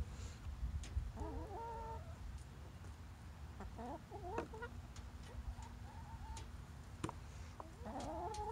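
Backyard hens clucking. A drawn-out call comes about a second in, a quick run of clucks around four seconds, and another drawn-out call begins near the end, with a few sharp clicks in between.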